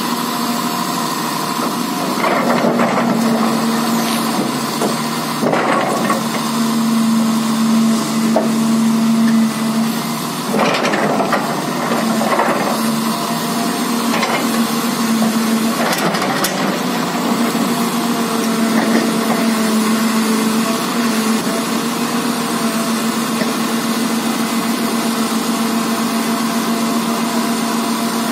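Hydraulic excavator's diesel engine running with a steady drone under load as its bucket drags a stripped excavator undercarriage across the dirt. The steel tracks and frame creak, scrape and clank now and then, mostly in the first half.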